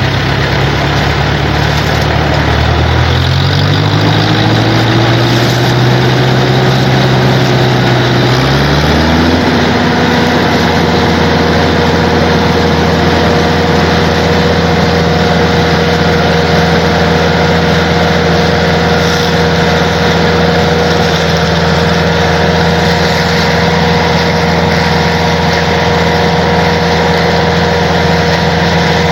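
Vehicle engine speeding up in two steps, a few seconds in and again about nine seconds in, then running steadily at the higher speed with a steady whine.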